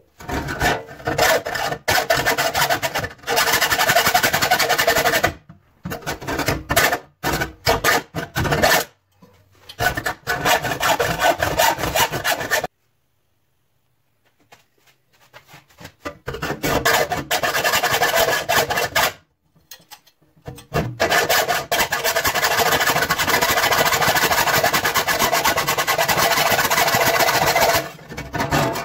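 Hand-held saw blade cutting through the thin sheet steel of a clothes dryer door: runs of fast, rasping strokes, broken by short pauses and one break near the middle.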